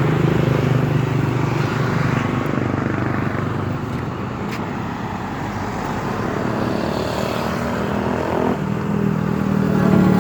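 Motorcycle engine running at riding speed, with wind and road noise on the microphone; the sound eases off a little about halfway through and builds again toward the end.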